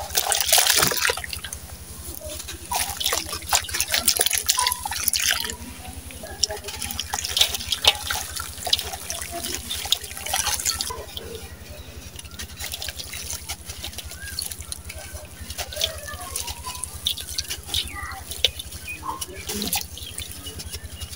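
Sand-cement clumps crunched and crumbled by hand over a steel tub of water: dense gritty crackling, with bits dripping and splashing into the water, loudest in the first second.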